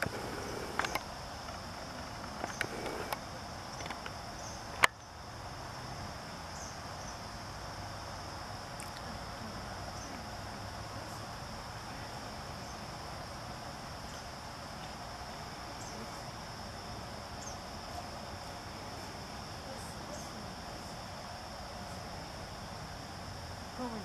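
Steady, high-pitched chorus of insects droning without a break. A few sharp clicks sound in the first few seconds, the loudest a single sharp click about five seconds in.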